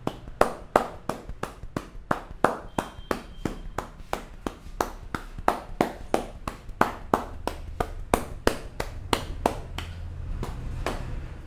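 Percussive head massage: hands striking the head in a rapid, even rhythm of sharp slaps, about three to four a second, stopping near the end.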